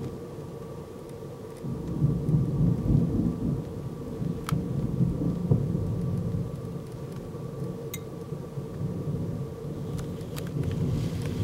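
Rolling thunder from a thunderstorm: a low rumble that swells about two seconds in, rumbles on for several seconds, and swells again near the end.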